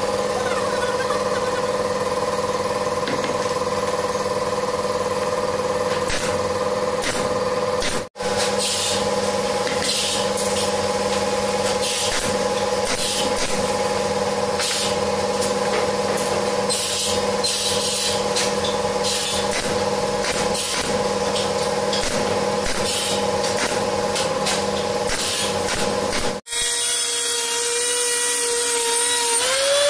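A machine runs with a steady, even hum, with occasional short hissing bursts. Near the end an electric router takes over, its motor pitch wavering as the bit cuts a curved groove into the wooden tabletop.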